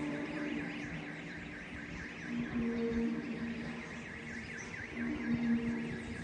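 A low, horn-like hum in the sky, held a second at a time and swelling three times, with a fast, steady, high warble running behind it. Its source is not identified; the recorder calls it a strange noise in the sky.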